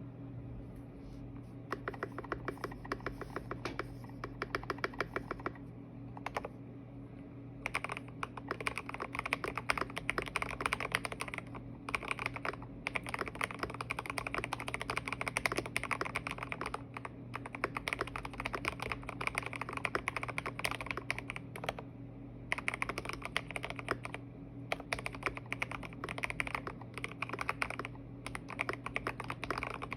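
Fast typing on a Vortex VX6 mechanical keyboard with Gateron Black linear switches, lubed with Krytox 205g0 and fitted with switch films, in a frosted acrylic case. It makes a quick run of keystrokes with several short pauses, over a steady low hum.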